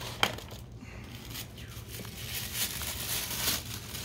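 Toy packaging being torn open along a perforated line, with ripping and crinkling rustles and a sharp snap just after the start.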